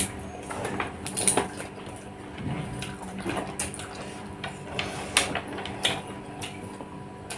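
Two people eating rice and chicken with their hands from plates: scattered soft clicks and taps of fingers and food against the plates, over a faint steady hum.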